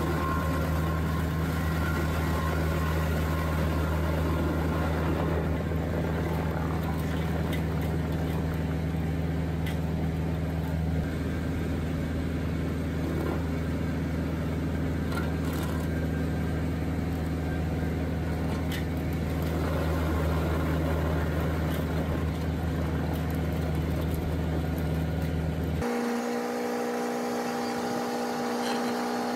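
Tractor engine running steadily while driving a Mexmax SG24 PTO stump grinder, with scattered faint clicks. About 26 seconds in, the sound cuts abruptly to a different machine with a higher steady hum.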